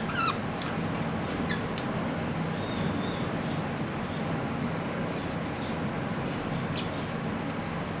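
Caged budgerigars giving a few short chirps: a louder falling call right at the start, then scattered single chirps. Under them runs a steady background hiss and hum.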